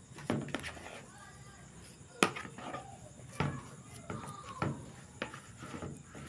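Plastic rice paddle knocking and scraping against a bowl as it presses and mixes a bait mash: a handful of separate sharp taps, the loudest about two seconds in.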